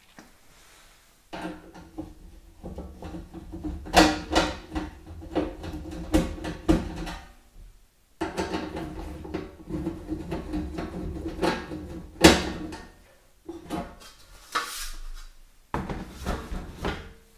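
A screwdriver undoing the screws of a steel consumer unit's front cover, with metal scraping and clicks, followed by the cover plate being lifted off and handled with knocks. The work comes in two long stretches with a short pause between them.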